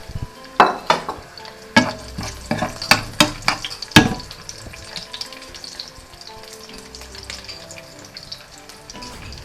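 Onion frying in hot oil with garlic and chillies, sizzling steadily, while a spoon strikes and scrapes the pan several times in the first four seconds as it is stirred.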